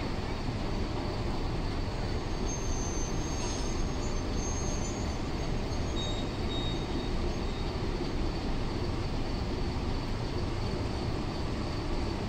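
Passenger train hauled by an EP1M electric locomotive moving slowly through a station, a steady low rumble with a few faint, brief high-pitched squeals from the wheels a few seconds in.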